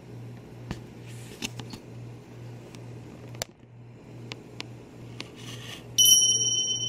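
A steady low hum with a few faint light clicks, then a single loud ding about six seconds in that rings on with a high, clear tone.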